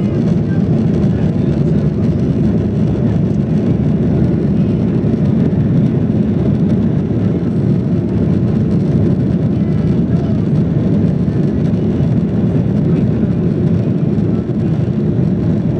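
Cabin noise of a Boeing 737-800 in flight shortly after takeoff: its CFM56 turbofan engines and the airflow past the fuselage make a steady low rumble.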